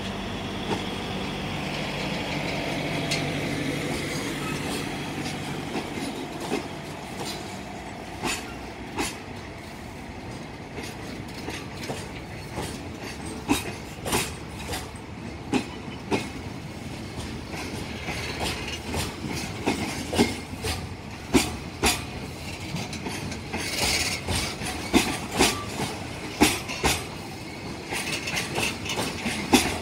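Container freight wagons rolling past, their wheels clacking over rail joints in irregular groups that come more often toward the end. A low hum in the first few seconds fades away, and there is a brief hiss or squeal about three-quarters of the way through.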